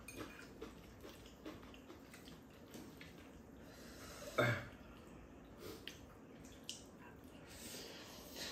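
Two people eating noodles and rice cakes with chopsticks: light clicks of chopsticks against bowls and chewing, one brief louder sound about four seconds in, and noodles being slurped near the end.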